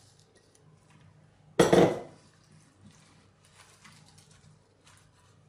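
A glass mixing bowl is set down on the counter with one loud knock about a second and a half in. Around it are faint squishing and rustling sounds as gloved hands spread raw cubed meat and vegetables in a glass baking dish.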